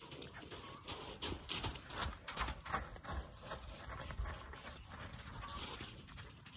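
Hoofbeats of a horse circling on a lunge line over dirt ground, an irregular run of dull thuds, with low rumble from wind on the microphone.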